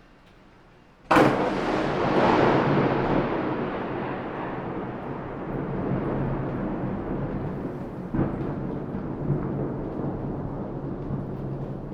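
A sudden, loud thunderclap about a second in, followed by a long rolling rumble that slowly fades, with a second, weaker crack about eight seconds in. Rain falls underneath.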